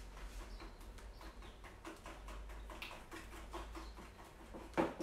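Small hand whisk (cuillère magique) mixing melted chocolate and eggs in a small bowl: faint, quick clicks and light scraping, with one brief louder sound near the end.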